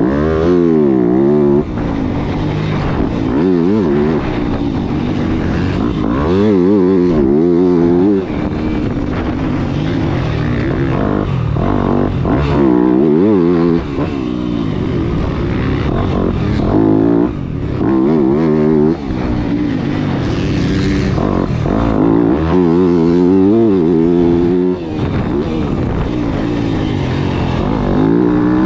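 Yamaha motocross bike's engine, heard onboard while being ridden hard: it revs up and drops back again and again as the throttle is opened and shut, with short dips in loudness every few seconds.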